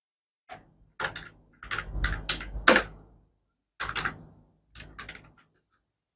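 Handwriting with a pen: a run of short scratching and tapping strokes in clusters, with brief pauses between them.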